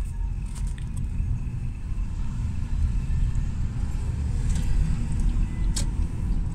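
Steady low road rumble inside a moving vehicle driving through city traffic, with a few faint clicks and rattles.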